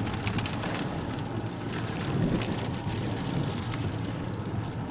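Storm wind and rain: a steady low rumble of wind on the microphone, with scattered sharp taps of raindrops hitting nearby.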